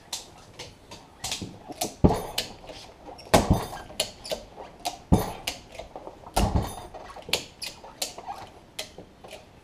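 Ratchet strap being cranked to pull a hydraulic cylinder's gland out of the barrel: a run of sharp ratchet clicks, with four heavier clunks about a second and a half apart in the middle.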